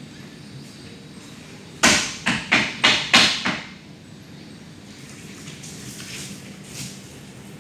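A quick run of about six sharp, hard knocks over some two seconds, each with a short ringing tail: a hard object struck repeatedly against a hard surface.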